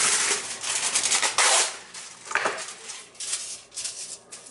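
Aluminium foil being pulled off the roll and torn from its box, then crinkling and rustling in a series of strokes as gloved hands smooth the sheet flat on a wooden cutting board.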